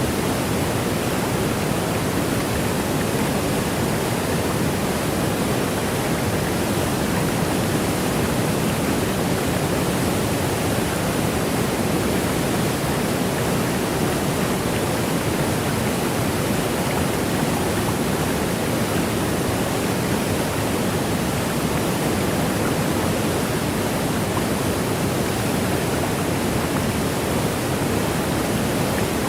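Waterfall: water rushing and cascading in a steady, unchanging hiss.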